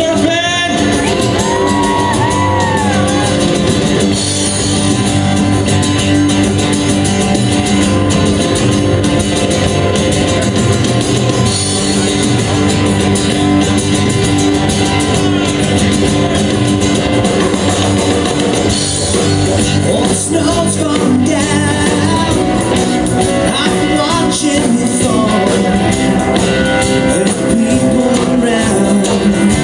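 Country band playing live with electric guitars, bass, drums and singing.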